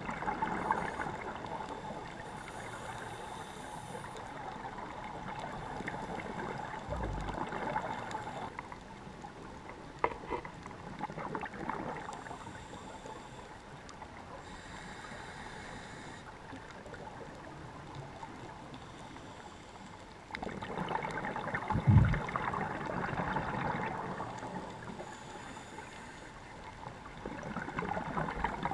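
Scuba diver breathing through a regulator underwater: a hiss on each inhale and a burst of gurgling exhaust bubbles on each exhale, repeating every ten seconds or so. A short low thump is heard about two-thirds of the way through.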